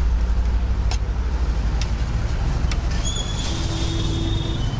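Steady low rumble of passing road traffic, with a few sharp clicks in the first few seconds and a brief held high-pitched tone about three seconds in.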